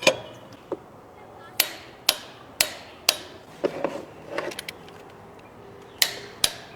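Sharp metallic taps and clicks from hand tools working on the engine's timing chain assembly: about a dozen separate strikes, several in a row about half a second apart, each with a short ring.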